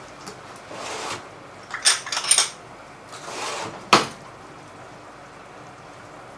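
Kitchen clatter of a small bowl and ladle: a quick run of sharp clinks about two seconds in and one more clink about four seconds in, with brief rustling between.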